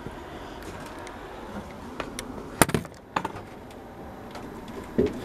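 A handful of sharp knocks and clunks as someone clambers into an old railway carriage, bunched in the middle, over a steady background hiss.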